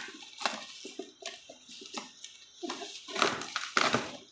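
Black plastic wrapping rustling and crinkling in irregular strokes as hands pull and handle it inside a cardboard box, loudest a little past the middle.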